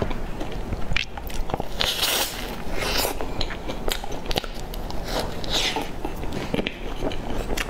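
Close-miked biting and chewing of a cream puff with a crumbly, crisp crust topping: several short crunches and wet mouth clicks as the crust breaks and the cream filling is chewed.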